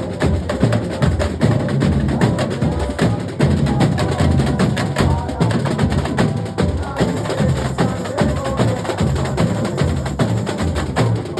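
A carnival comparsa's drum section playing a dense, steady groove together: deep bass drums under rapid, sharp, clicking strokes.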